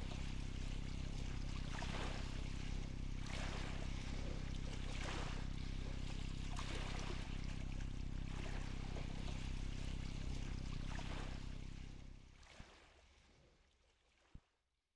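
Small sea waves lapping and splashing in a steady wash that swells every second or two, over a low steady rumble; it fades out near the end.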